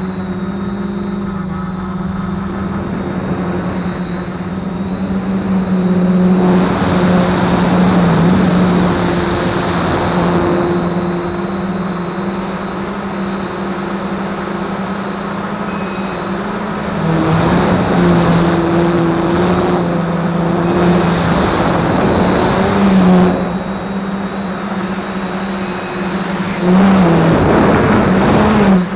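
DJI F450 quadcopter's electric motors and propellers humming steadily, heard from a camera mounted on the craft. The hum rises slightly in pitch and swells louder with a rushing of air three times: about six seconds in, midway, and near the end.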